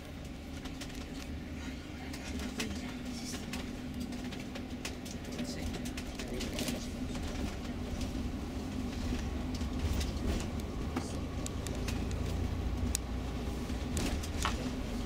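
Tour coach's engine and road rumble heard from inside the cabin as the bus drives along, with a steady engine drone and scattered light clicks and rattles, gradually getting louder.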